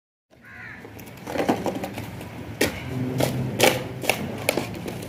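Irregular sharp knocks and clicks, about six of them over a few seconds, over a low steady hum.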